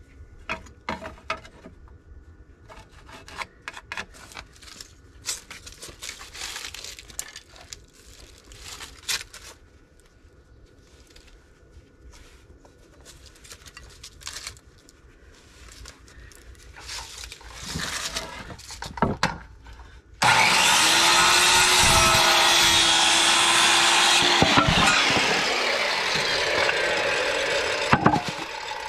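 Light clicks and taps from marking and handling a wooden board, then about two-thirds in an electric circular saw starts abruptly and cuts across the board for about eight seconds, easing off near the end.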